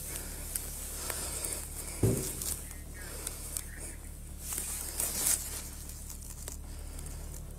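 Rustling and small clicks of a police body-worn camera rubbing against clothing as the wearer moves, over a steady low hum. There is a dull thump about two seconds in.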